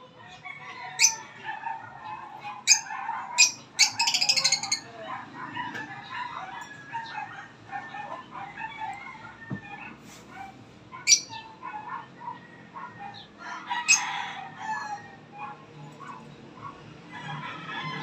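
Caged lovebirds chattering: a constant run of short, high chirps broken by loud, sharp shrieks, the longest a buzzy screech about four seconds in, with more shrieks near eleven and fourteen seconds.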